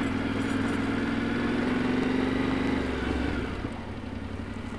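Yamaha Ténéré 700's parallel-twin engine running at a steady low throttle under way on a dirt track, with rumbling tyre and road noise beneath it. About three and a half seconds in the throttle is eased off, and the engine note falls away and gets quieter.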